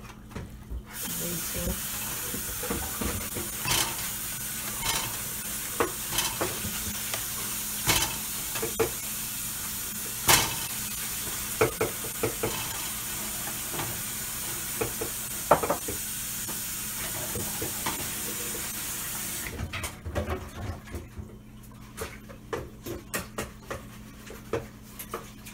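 A steady hiss in a kitchen, with scattered clinks and taps of cookware and utensils. The hiss cuts off suddenly about three quarters of the way through, leaving only the clinks.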